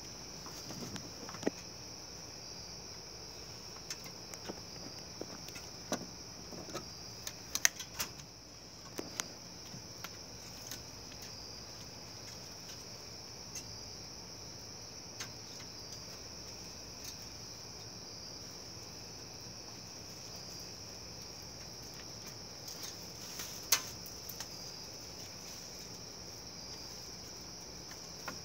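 Crickets chirring in a steady, high-pitched chorus, with scattered sharp clicks and taps, the loudest a little under eight seconds in and again about twenty-four seconds in.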